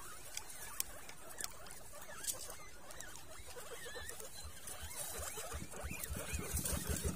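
Guinea pigs squeaking and chattering in short wavering calls, with scattered sharp clicks. Near the end a low, rapidly pulsing hum comes in and grows louder.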